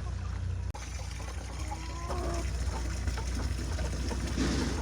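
Chickens clucking a few times, about two seconds in, over water running from a garden hose, which rushes loudest near the end.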